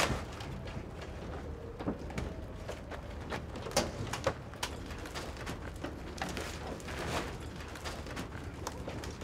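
Irregular light knocks, clicks and rustles from people handling a huge wire-framed fried-chicken sculpture on a truck bed.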